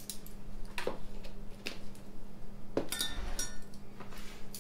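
A few separate light clinks and knocks of spice containers and kitchen utensils being handled and set down while seasoning, one about three seconds in with a brief metallic ring.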